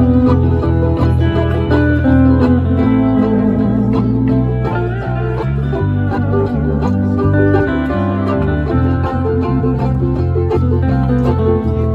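A live band plays a surf-style Hawaiian tune: plucked strings with a lap steel guitar's sustained notes over a steady bass line that changes note in a regular pattern.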